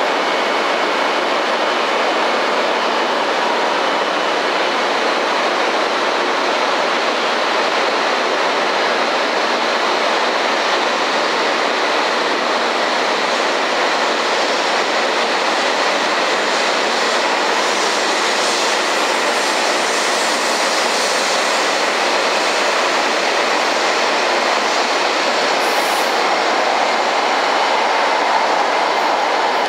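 E5 series Shinkansen pulling out of the station and gathering speed: a steady rushing of wheels on rails and traction motors, getting brighter and hissier past the middle as it speeds up.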